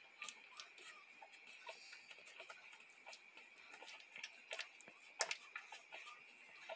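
One-week-old schnauzer puppies suckling at their mother: faint, irregular clicking and smacking, several small clicks a second.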